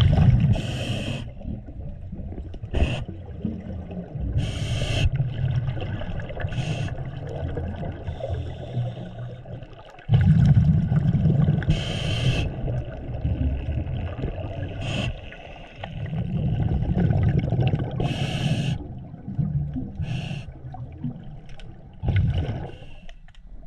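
Scuba diver breathing through a regulator, heard underwater through the camera housing: a few breaths, each a short hiss on the inhale followed by several seconds of low bubbling as the exhaled air escapes.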